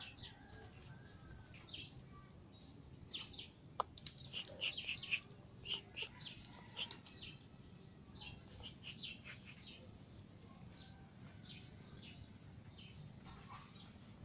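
Birds chirping: many short, high chirps, busiest between about three and seven seconds in.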